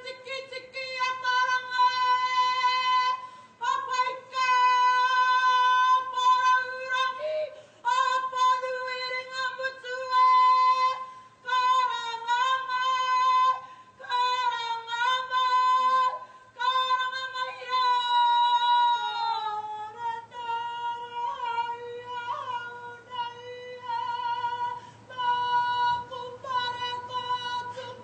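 A woman's single voice singing long held notes, mostly on one pitch, with short breaks between phrases. About two-thirds of the way through, the note slides down and comes back up.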